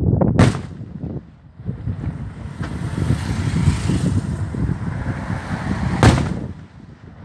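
Fireworks: two sharp bangs about six seconds apart, with a hissing crackle between them that swells toward the middle, over a constant low rumble.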